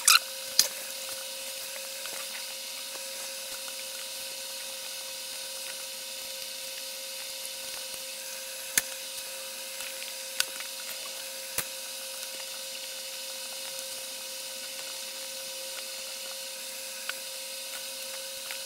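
Steady background hum with a thin high hiss, broken by a few sharp clicks.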